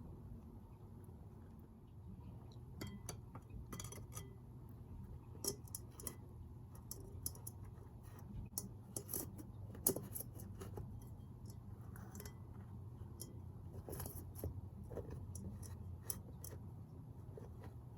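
Irregular light clicks and clinks of small tools and items handled against glass, over a low steady hum.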